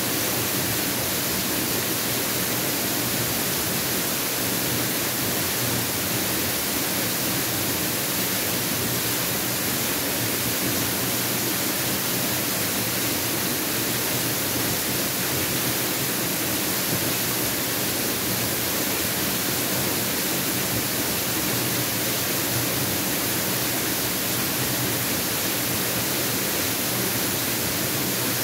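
Mountain waterfall: water falling and splashing in a steady, even rush with no pauses or changes.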